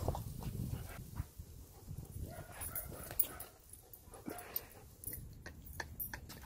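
Dogs chewing vegetables and moving about on a patio: faint, scattered crunches and clicks over a low rumble.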